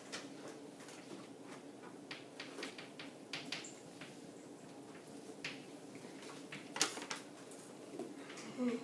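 Chalk on a chalkboard as a circle and lines are drawn: a run of short, irregular taps and scratches, the sharpest about seven seconds in, over a faint steady room hum.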